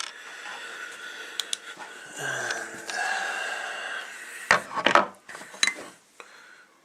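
Small hard parts of an airsoft AK hop-up chamber and barrel assembly being handled and fitted together: scattered light clicks, then a quick run of sharp clacks near the end.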